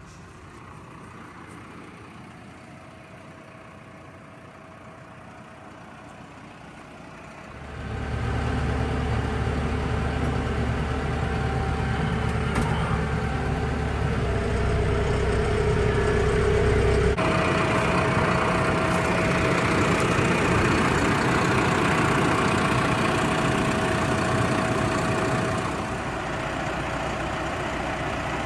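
Kioti HX115 tractor's diesel engine running, fairly quiet at first. About eight seconds in it gets much louder and stays loud and steady.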